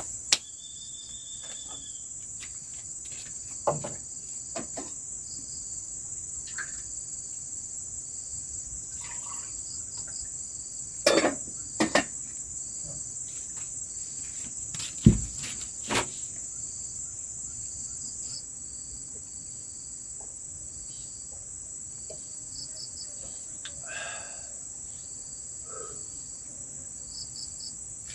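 Steady chorus of forest insects, a continuous high buzzing. Scattered sharp knocks and thumps break in now and then, the loudest about fifteen seconds in.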